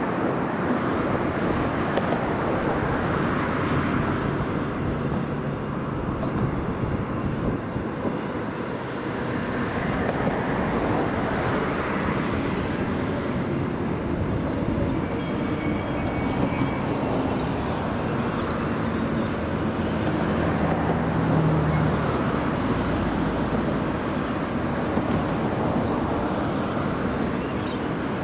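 Transperth A-series electric multiple-unit train approaching and slowing into a station against a steady outdoor rush; a low hum from the train grows as it nears, loudest about twenty seconds in, with a faint high whine a few seconds before that.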